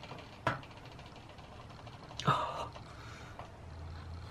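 Quiet handling sounds as a five-gallon bucket of primer is tipped to pour into a metal paint tray: a light knock about half a second in and a short breath or gasp around two seconds in.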